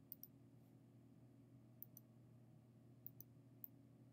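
Computer mouse clicking: a few quiet, sharp clicks, mostly in quick pairs, over a faint steady low hum.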